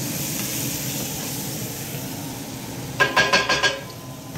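Sliced peppers and onions sizzling in a cast iron skillet, a steady hiss. About three seconds in comes a quick run of about five ringing clinks, the loudest sound here.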